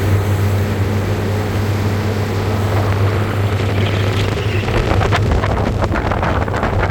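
Motorboat engine running steadily under way, with wind rushing on the microphone. From about four seconds in, crackling gusts of wind buffet the microphone.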